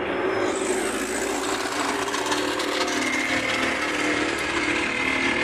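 A car's starter solenoid clicking repeatedly when the key is turned, without the engine cranking. It is the sign of poor contact at a loose starter cable on the solenoid.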